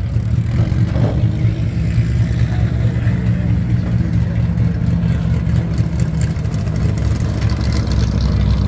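A car engine running steadily at a low, even speed, close by and loud.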